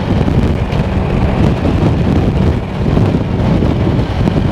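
Wind buffeting the microphone, a loud, steady, deep rushing noise.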